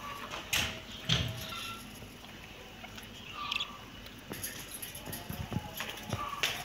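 Two cats eating off a tiled pavement: scattered crunching clicks of chewing, coming thicker in the second half, with a few short faint high tones in the background.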